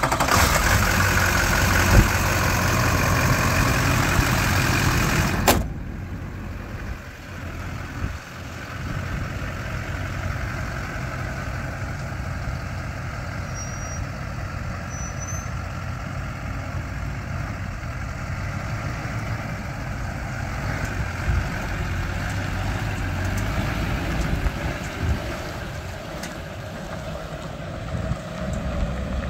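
2001 GMC Sierra 2500HD's V8 engine running loud and close under the open hood. About five seconds in the sound cuts to the truck being driven around a dirt yard, its engine quieter and heard from a distance with a steady background rush.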